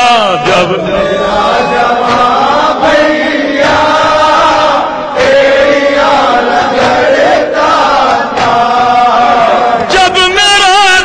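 Chorus of voices chanting a noha, an Urdu lament, in held, sustained notes.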